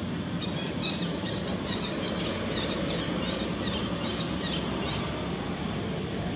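Outdoor forest ambience: a steady hiss with a rapid series of high-pitched chirps, several a second, that starts about half a second in and stops about five seconds in.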